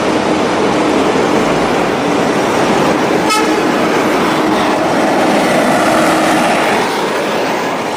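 Loud, steady road-vehicle noise with a faint, steady horn-like tone coming and going through it, and a sharp click about three seconds in. The sound starts and stops abruptly, as if edited in.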